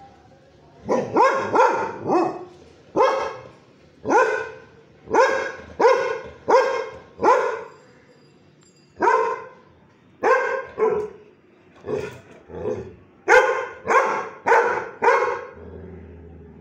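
A Labrador-type dog barking out of a window, about twenty loud barks in quick bursts, with a pause of over a second about halfway through.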